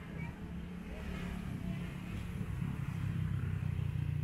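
A motor vehicle's engine running close by in the street, growing louder over a few seconds as it draws near, with a low steady rumble over general traffic noise.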